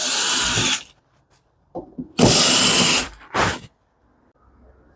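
Cordless power screwdriver or drill running in short bursts to back out screws from a dryer's rear panel: two runs of under a second each, the second about two seconds in, then a brief third spurt.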